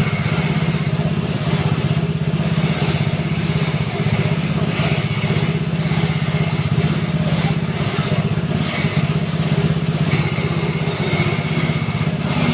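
Old coconut grinding machine running steadily, its engine keeping an even, rapid chugging beat. Brief higher hissy bursts come about four and eight seconds in.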